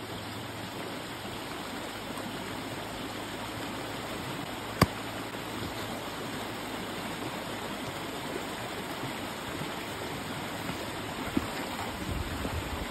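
Steady rush of running water, with a single sharp click about five seconds in.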